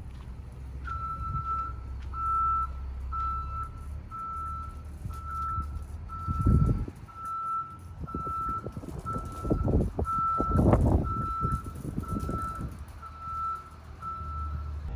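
A vehicle's reversing alarm beeping steadily, one high-pitched beep about every second. Low rumbling wind noise on the microphone swells in gusts about six and ten seconds in.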